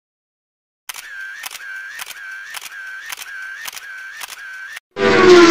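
Camera shutter sound effect, clicking repeatedly about seven times in steady succession, each click followed by a brief whirr. Near the end a loud tone with many overtones, falling in pitch, cuts in.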